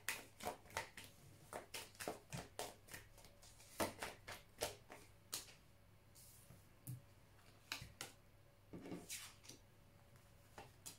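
Tarot deck being shuffled by hand: a quick run of card flicks and taps for about five seconds, then a few cards slid out and laid down on a table.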